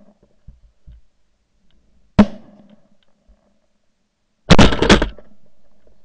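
Shotgun shots: one sharp blast, then a quick volley of several more blasts about two seconds later, trailing off in an echo.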